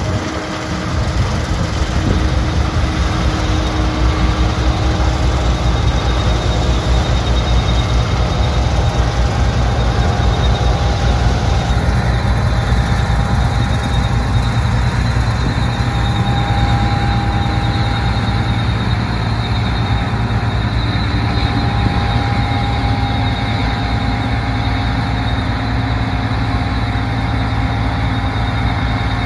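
New Holland CR11 rotary combine running steadily under load while harvesting wheat: a deep, loud engine drone with faint steady higher tones from the machinery. The higher hiss falls away about twelve seconds in.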